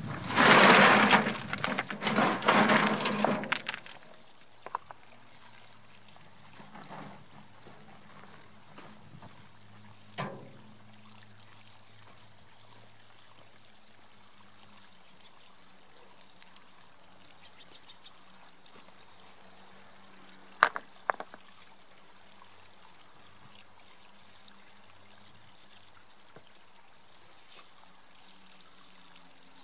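A wheelbarrow load of rocks tipped out, clattering onto the pile for about three seconds. Then water trickles steadily out of a plastic culvert pipe, with a few sharp knocks of rock on rock.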